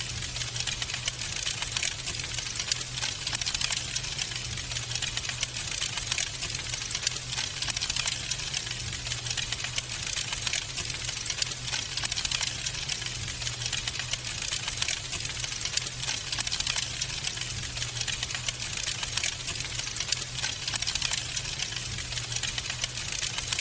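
Wood fire crackling in a fireplace: a dense, irregular stream of small snaps and pops over a soft hiss, with a few louder pops and a low steady rumble beneath.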